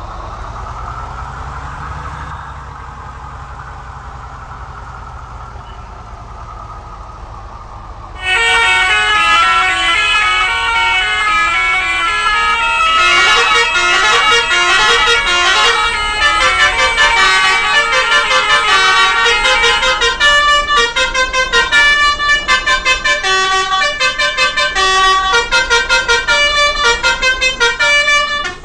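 Bus engine running for about eight seconds, then a loud telolet bus horn, a set of electric trumpet horns playing a stepping melody of many notes that turns into quick short toots toward the end and cuts off abruptly.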